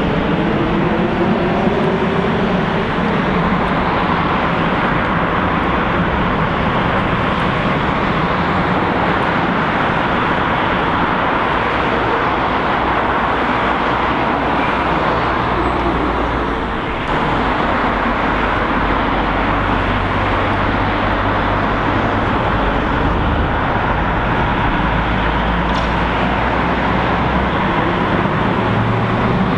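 Steady road traffic noise along the seafront, with the low rumble of an electric tram growing over the last ten seconds as it draws near on street track.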